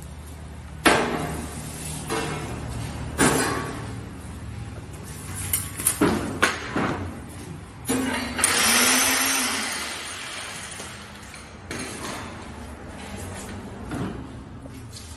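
Heavy steel security door being worked into its frame: scattered knocks and bangs of metal against metal, with a longer scrape of about two seconds a little past the middle.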